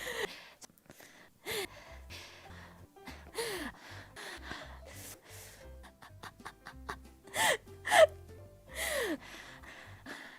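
A man's short, breathy gasps and exhalations, six or seven of them, several with a voiced edge that falls in pitch. The loudest comes about eight seconds in.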